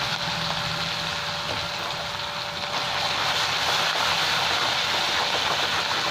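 Mustard oil sizzling hard in a kadai with ginger and green chilli paste frying in it. From about three seconds in, a metal spatula stirs and scrapes the paste around the pan.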